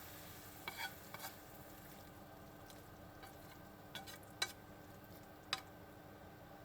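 Bok choy and fried tofu stir-fry sizzling faintly in a frying pan, with a few light clicks of a utensil against the pan.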